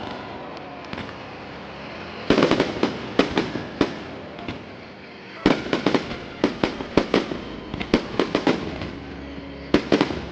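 Aerial fireworks bursting in rapid volleys of sharp bangs and cracks: a cluster about two seconds in, a longer run from about five and a half seconds, and another just before the end.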